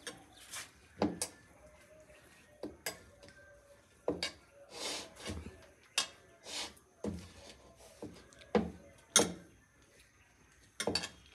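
Hands mixing and kneading a soft, wet flour dough in a metal bowl: irregular knocks and clinks against the bowl, with a few short squelching swishes.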